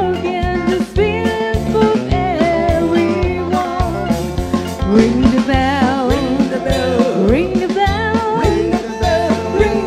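A live band playing: a woman singing a melody with vibrato into a microphone, over a drum kit and bass keeping a steady beat.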